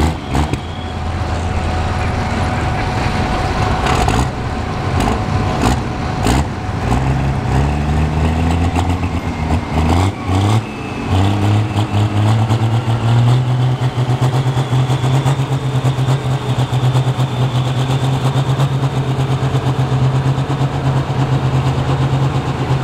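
Turbo-diesel Dodge Ram pulling truck under full load as it drags a weight sled: the engine note climbs for several seconds, then holds steady at high revs, with a faint turbo whistle slowly rising over it.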